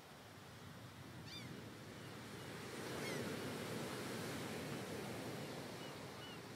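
Faint steady wash of sea waves and wind, swelling slightly about three seconds in, with a few short, high bird chirps.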